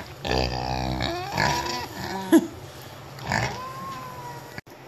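Pig grunting several times at close range, with a short sharp sound about halfway through.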